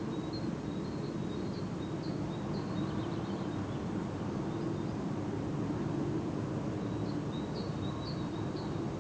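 Small songbirds repeating short high chirps, in one run at the start and another near the end, over a steady low hum from a paper mill.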